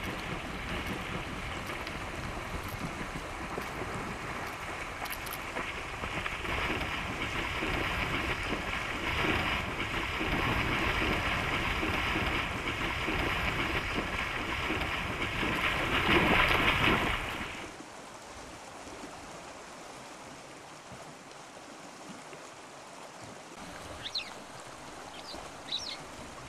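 Brown bear splashing as it charges through shallow water after salmon, a steady rushing splash that stops suddenly about seventeen seconds in. A quieter background follows, with two short high chirps near the end.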